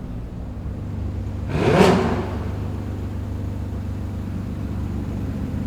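Car engine idling steadily, with one short, loud swell of engine noise about two seconds in that rises and fades within under a second.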